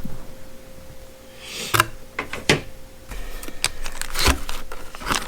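Ratcheting box-end wrenches and their plastic organizer being handled: a brief rustle of packaging, then several sharp metal clicks and knocks.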